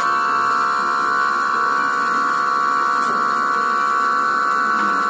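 Small electric air pump running with a steady high-pitched buzz as it blows air into a bottle of petrol. A faint click comes about three seconds in.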